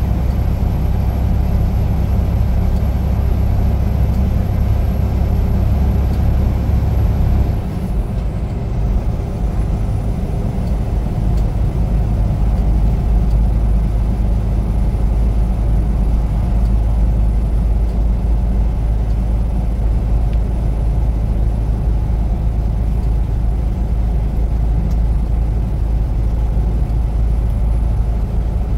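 Semi-truck engine and road noise while driving, steady and loud. About eight seconds in there is a brief dip and the engine's note changes.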